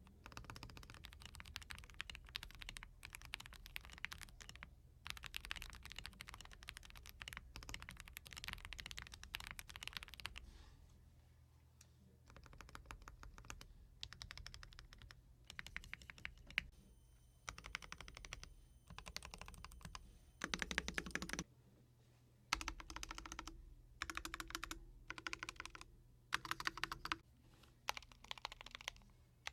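Mechanical keyboard typing: a Zoom65 v3 with Akko Dracula switches and PBT keycaps, typed on quickly and steadily. About eleven seconds in the typing stops, and then come short separate clusters of presses on the larger modifier keys, some with a heavier low thud.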